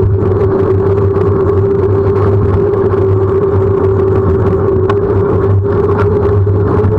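Wind and tyre noise from a bicycle rolling along an asphalt road, picked up by a bike-mounted camera, with a steady hum that rises slightly near the end.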